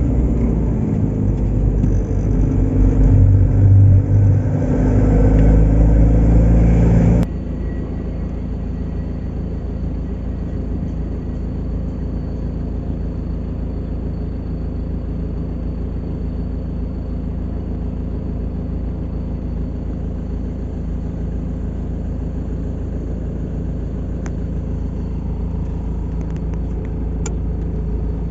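A motor engine running with a steady low rumble. About seven seconds in the sound cuts abruptly to a quieter, even engine drone that holds steady.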